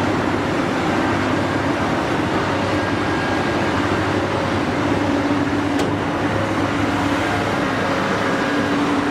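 Caterpillar hydraulic mining excavator's diesel engine running steadily under load while it digs and loads sand, a constant dense machine noise with a faint low hum.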